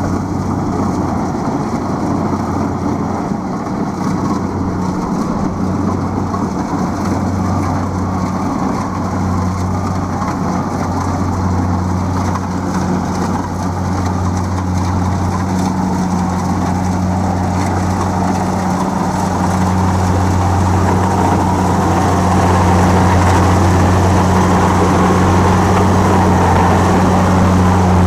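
Kubota DC-70 Plus rice combine harvester running steadily at work, its diesel engine humming under the rattle of the machinery. It grows louder in the second half as it comes up close.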